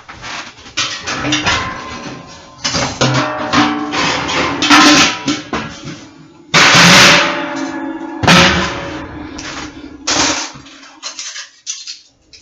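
Dishes, glasses and cutlery clinking and knocking together as a dishwasher is unloaded, with loud clatters about five, seven and eight seconds in and a held low tone underneath.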